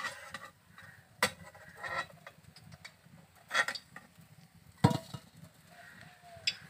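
A metal spatula clanking against an iron wok and a steel bowl as fried gur pithas are lifted out of the oil. There are three sharp clanks a second or two apart.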